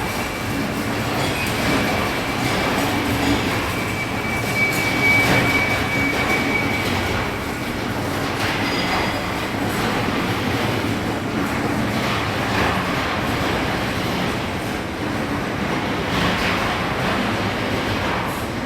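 Gold trommel's rotating drum running, a steady rumbling and rattling with occasional knocks, and a thin high squeal over the first several seconds.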